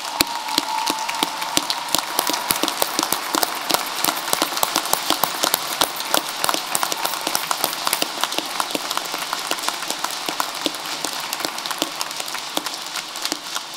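Audience applauding: many people clapping steadily, thinning out near the end.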